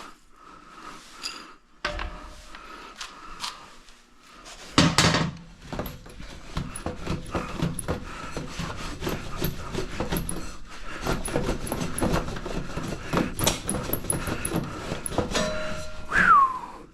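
Exhaust pipe parts being handled and fitted: knocking, clattering and rubbing. There is one loud knock about five seconds in, then a dense run of knocks and scraping, and a short falling squeak near the end.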